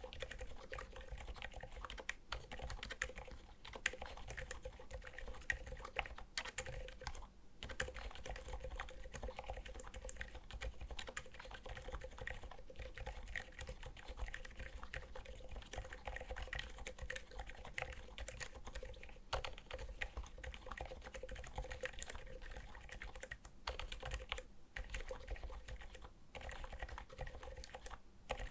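Steady typing on a Skog Reboot mechanical keyboard fitted with Seriko silent linear switches: a dense, continuous patter of keystrokes with a few brief pauses.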